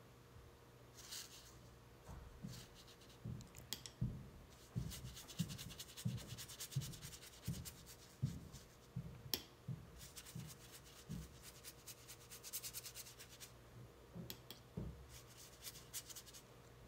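Watercolour brush scrubbing on paper in several spells of quick repeated strokes: a faint dry rubbing with soft taps underneath.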